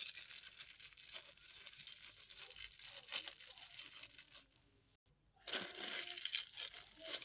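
Thin plastic bag crinkling and rustling as hands squeeze and knead a crumbly tempe bait mix inside it. The rustling stops for about a second after about four and a half seconds, then starts again.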